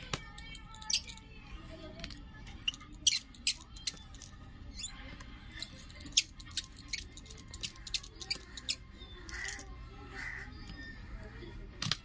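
Sharp, irregular clicks and taps of a precision screwdriver working the tiny screws of a phone's inner frame, over faint background music and voices.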